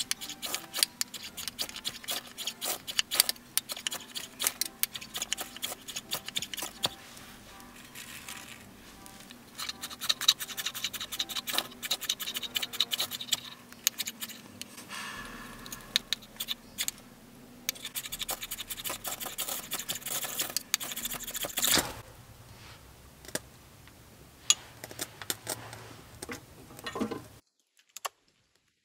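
A steel striker scraped again and again down a ferrocerium (ferro) rod to throw sparks into a dry-grass tinder bundle: quick, irregular scratching strokes that stop suddenly near the end.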